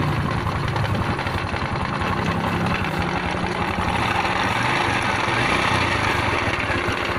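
Honda Revo Absolute 110 cc four-stroke single idling with a rough, ticking mechanical clatter from the front of the engine on the clutch side. The uploader puts this harsh noise down to a clutch problem.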